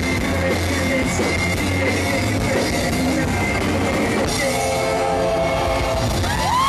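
Live rock band playing loud: distorted electric guitars, bass, drum kit and singing. Near the end a long high note slides up and then holds steady.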